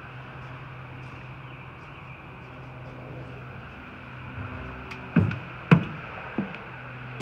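Footsteps stepping down out of a railway passenger coach onto the ground: three heavy thumps in the second half, the middle one loudest, over a steady low hum.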